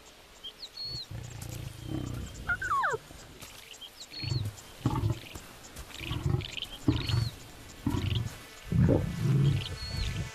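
Lion roaring: a series of deep grunting calls, several short ones and a few longer ones, with a bird chirping now and then above them.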